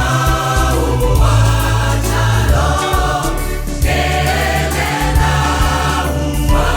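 A choir singing a gospel song in several voices, over a steady, deep bass line.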